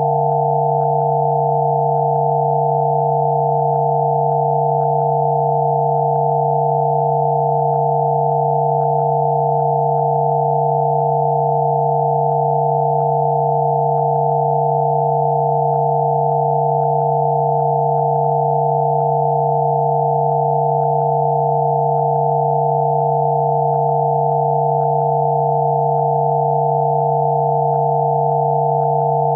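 Electronically generated pure sine tones, a Rife-frequency therapy tone: one low tone and several higher tones sounding together, completely steady and unchanging.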